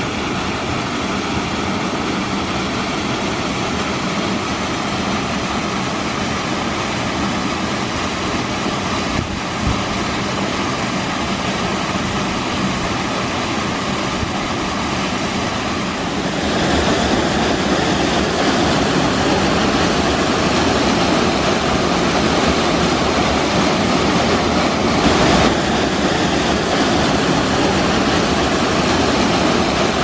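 Waterfall pouring down a rock face: a steady, dense rush of falling water. It gets louder about halfway through, as if from closer to the falls.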